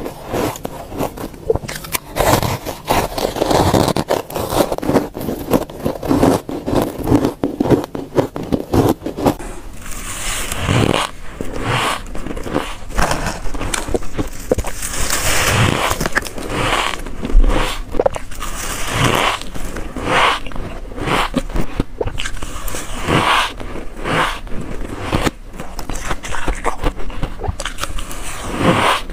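Close-miked biting and chewing of soft, powdery freezer frost and frosted ice: a steady run of crisp, squeaky crunches as the frost is bitten and packed between the teeth.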